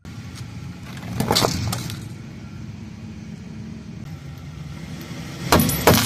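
Car engine running at a steady low rumble, with a short crackle about a second in. Near the end, a burst of sharp cracks and crunches as the car's tyre rolls over and crushes small plastic tubes of glitter.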